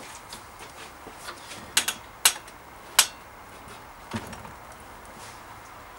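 A handful of short, sharp knocks and clicks, spaced irregularly: a quick pair near the second mark, then single ones about half a second and a second later, and a duller one past the four-second mark.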